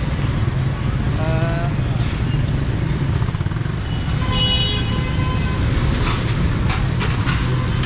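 Busy street traffic: motorcycle and car engines running in a steady low rumble, with a vehicle horn sounding for about a second near the middle.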